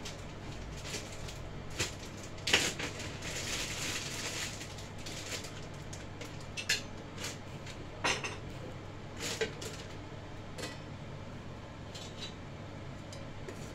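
Kitchen dishes and utensils clinking and knocking, a string of separate knocks over a steady low hum. The loudest is a sharp knock about two and a half seconds in, followed by a few seconds of hiss.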